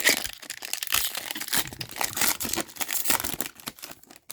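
Plastic hockey card pack wrapper being torn open and crinkled in the hands, a dense, loud crackling that dies away near the end.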